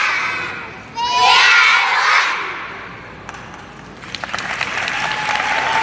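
A group of children shouting together in a loud cheer about a second in, which fades away, then applause and cheering from the audience building up from about four seconds in.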